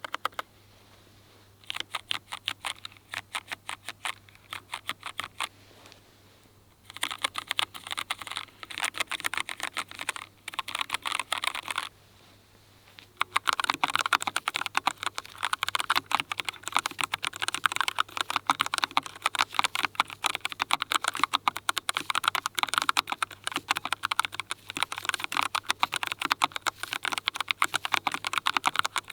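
Typing on low-profile Keychron mechanical keyboards: at first a K1 Ultra 8K with linear Milk-POM Red switches, in spurts with short pauses. After a brief pause about twelve seconds in, a K3 Ultra 8K with tactile Milk-POM Brown switches is typed in a denser, louder run of keystrokes.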